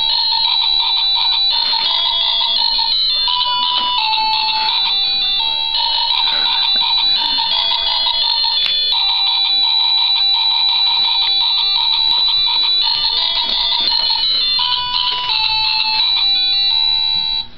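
Toy baby walker's electronic activity panel playing a simple beeping melody, one bright note after another without pause, cutting off suddenly near the end.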